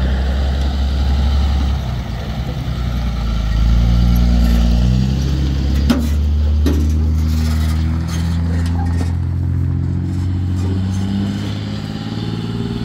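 Heavy-duty dually pickup truck's engine pulling a trailer loaded with a 5-ton military 6x6 truck past on gravel: a steady engine drone that steps in pitch a few times, with tyre noise on the gravel. A sharp knock sounds about six seconds in.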